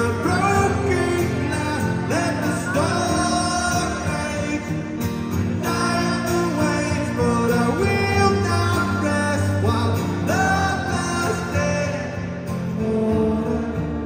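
A man singing solo to his own strummed acoustic guitar, amplified live through a concert sound system.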